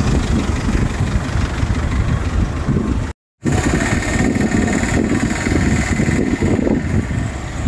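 Motor vehicle engine running nearby, a steady low rumble with road traffic, broken by a short cut to silence about three seconds in.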